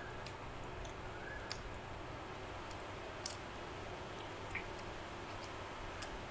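Mouth sounds of someone eating chicken by hand: chewing with a few short, wet clicks and smacks, the sharpest a little over three seconds in, over a steady background hiss.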